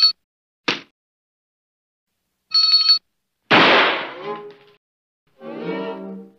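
Cartoon sound effects: a small hand bell rung in two short bursts, a knock between them, then a louder crash that rings and fades, and a short pitched note near the end.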